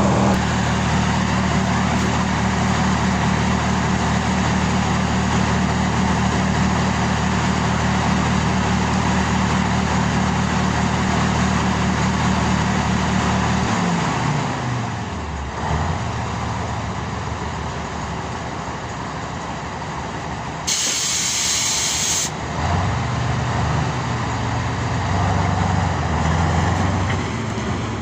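Kirovets K-701 tractor's diesel engine running steadily under load, then dropping in pitch as it throttles down about halfway through. A short hiss of released air lasts about a second and a half, after which the engine speeds up again.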